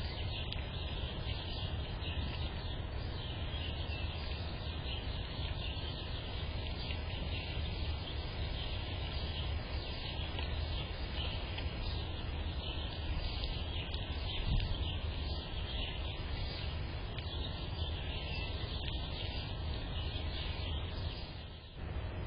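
Steady outdoor background noise, a low rumble under a hiss, with bird chirps faintly in it. It drops away briefly just before the end.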